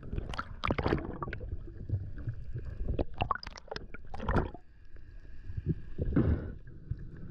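Underwater sound picked up by a diver's camera: water gurgling and rushing, with many irregular clicks and knocks as a speared wahoo is pulled in on its line and gripped by hand. A faint steady whine sits underneath.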